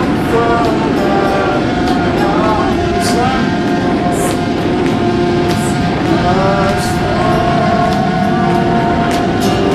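Background music with a melody over a steady beat.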